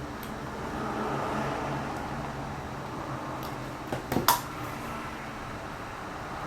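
Steady background hum and hiss, with a quick cluster of three or four clicks and knocks about four seconds in.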